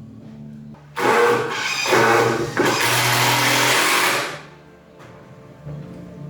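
A power tool running hard for about three seconds, starting about a second in and stopping sharply.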